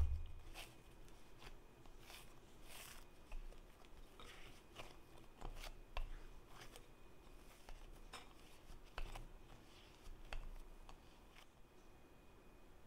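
Yeast dough being kneaded by hand in a flour-dusted glass bowl: faint, irregular soft slaps, taps and rubbing as the dough is pressed and turned.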